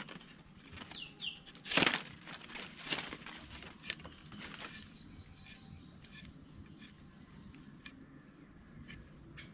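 Machete blade cutting and shaving the end of a wooden stick to a point: a few sharp strokes in the first five seconds, the loudest about two seconds in, then lighter scattered ticks.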